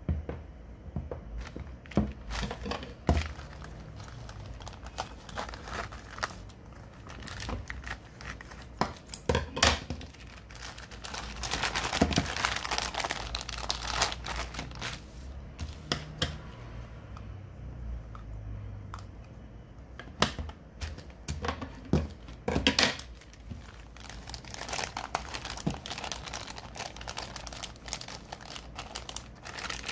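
Thin clear plastic packaging bag crinkling and rustling as it is handled and pulled open, with irregular sharp crackles and denser stretches of crinkling about a third of the way in and again near the end.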